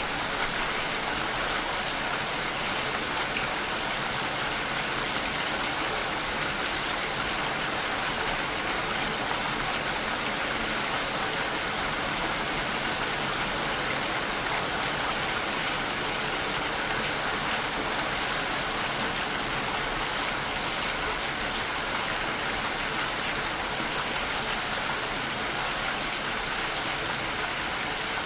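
Steady rain falling outside a house: an even, unbroken hiss of rainfall with no distinct drips or breaks.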